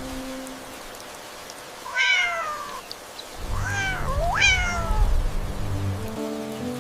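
A cat meowing three times: the first call falls in pitch, and the last rises then falls. Soft background music plays under the later calls.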